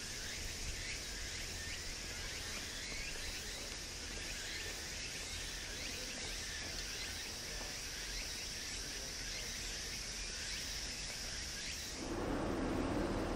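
Outdoor ambience with a steady high-pitched insect drone and many short chirps over it. About twelve seconds in, it cuts abruptly to a louder, lower rushing noise.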